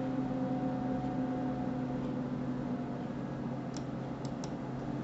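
Computer mouse clicking: three short, faint clicks close together near the end, over a steady low electrical hum.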